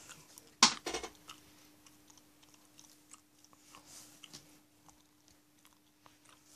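A cardboard sheet scraping and rustling on a bedspread as a cat paws at it, with one louder scrape just over half a second in, then scattered small scratches and ticks.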